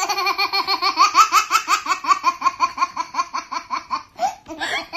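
A long, unbroken run of rapid laughter, a high 'ha-ha-ha' at several pulses a second that starts abruptly and slows and softens near the end.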